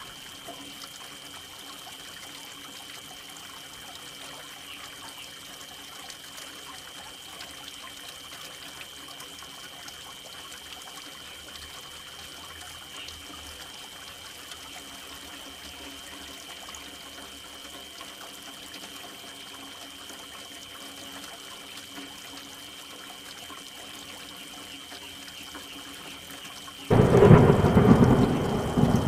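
Soft, steady rain falling for most of the stretch, then a sudden loud thunderclap near the end that goes on into a rolling rumble.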